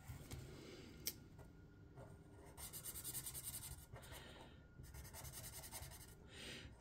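Fine-tip marker colouring in on a paper card: faint scratchy strokes that come in short spells, with a light tap about a second in.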